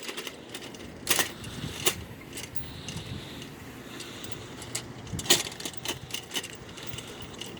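A few sharp clicks and light metallic jingling over a faint steady background.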